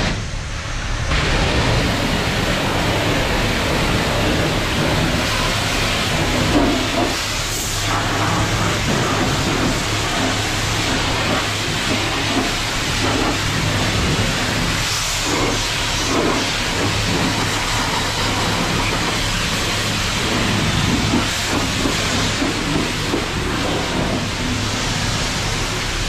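Coin-operated self-serve pressure washer wand spraying a steady hissing jet of water against the lower body and wheel of a pickup truck, blasting off road salt and grime, with a steady low hum underneath.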